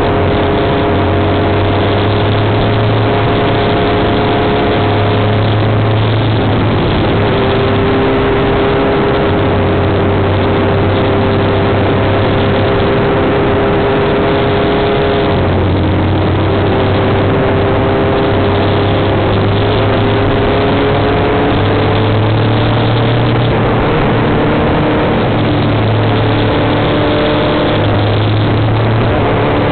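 Motorcycle engine running at road speed, its note shifting up and down several times as the speed and gears change, under a loud rush of wind on the microphone.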